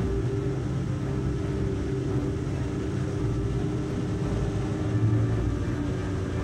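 Motors and propellers of a 7-inch FPV quadcopter in cruising flight: a steady low hum that swells briefly about five seconds in.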